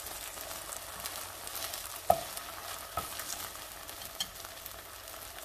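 Rice-flour sheet for bánh cuốn sizzling in a hot nonstick frying pan as it is rolled up, with many small crackles. A utensil clicks sharply against the pan twice, about two and three seconds in.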